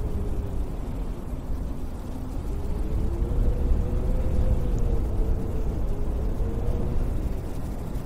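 Winter wind blowing snow: a steady deep rumble with a faint whistle that rises and falls in pitch.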